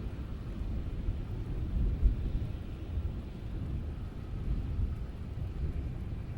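Steady rain with a deep, low rumble of thunder underneath, swelling briefly louder about two seconds in.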